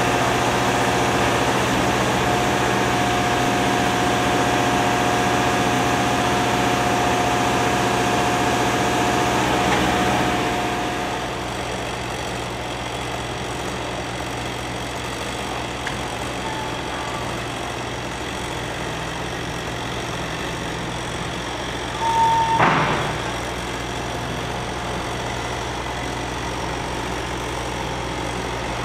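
Vehicle engine running steadily, louder for the first ten seconds or so and then settling to a lower, even level. A short loud burst with a brief tone stands out about three-quarters of the way through.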